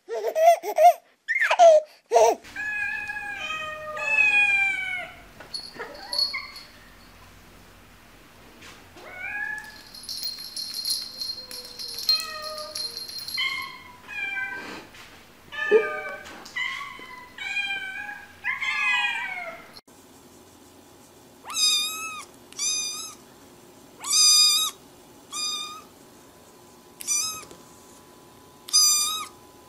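A few short loud sounds open, then several cats meow in turn with drawn-out, falling calls. From about two-thirds of the way through, a black kitten mews over and over: short, high-pitched cries about once a second.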